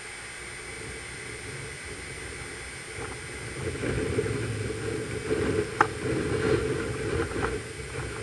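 Hurricane-force wind: a steady rush, then from about three and a half seconds in, louder irregular gusts that buffet the microphone, with the crackle of thrashing palm fronds and a sharp snap near the middle.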